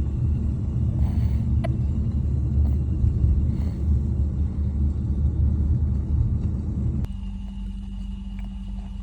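Low road rumble inside a moving car's cabin. About seven seconds in it cuts abruptly to a quieter steady hum.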